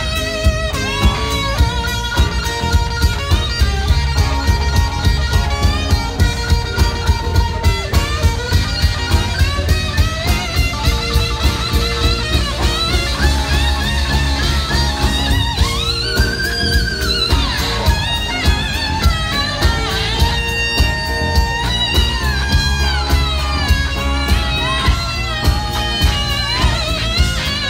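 Live band playing an instrumental stretch: a pedal steel guitar takes the lead with sliding, bending notes over a steady drum beat and bass.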